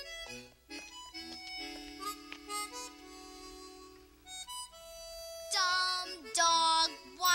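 Soft instrumental film-score music: held notes, then a louder melodic phrase with gliding notes beginning about five and a half seconds in.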